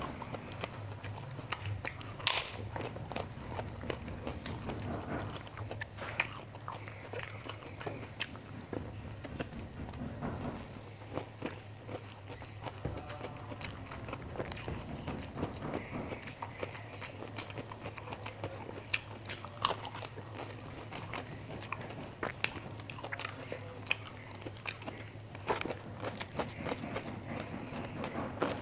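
Close-up chewing of fried rice and crunching of onion crackers (kerupuk bawang), with many short crisp crunches; the loudest comes about two seconds in. A low steady hum sits underneath.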